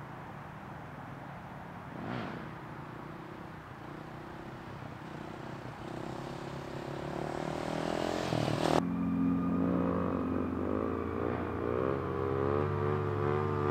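Dirt bike engine revving while the bike is ridden on a wheelie, its note rising and getting louder over the first part. About nine seconds in the sound changes suddenly to a louder engine whose pitch wavers up and down with the throttle.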